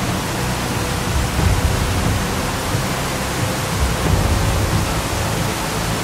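A steady, even rushing noise with faint sustained music tones underneath: a soundtrack of background music laid over the aerial footage.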